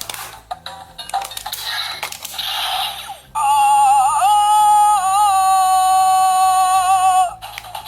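Electronic sound effect from a Zyuohger transformation toy's speaker: a few seconds of crackly, hissy noise, then about three seconds in a loud synthetic tone that wavers in pitch, holds for about four seconds and cuts off abruptly.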